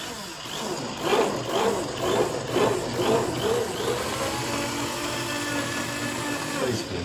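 Handheld stick blender motor running in a pot of lentil, carrot and onion soup, puréeing the vegetables. It surges and wavers for the first few seconds as the blade churns through chunks, then runs steadier.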